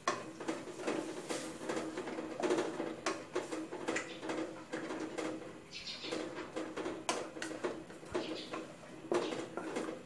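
Coconut cream bubbling and spitting in an aluminium pot as green curry paste fries in it, with a wooden spatula stirring and scraping the pot. Many irregular small pops and clicks.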